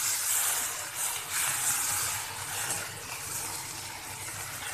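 Chopped tomatoes sizzling in hot oil with fried onions in an iron kadhai, stirred with a steel spoon; the sizzle slowly dies down.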